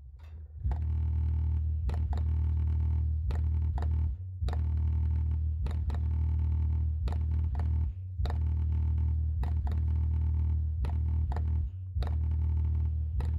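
Sunfire MK II subwoofer's 10-inch woofer playing a bass track: a deep, sustained bass line, broken by brief gaps about once a second, starting about half a second in.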